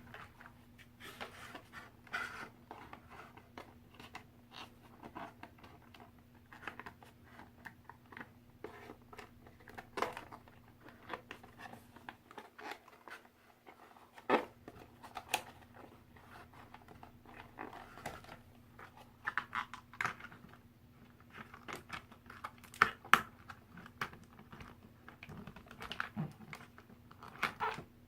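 Toy doll packaging being handled and opened by hand: irregular crinkling, rustling and small clicks and taps of plastic and cardboard, with a few sharper knocks.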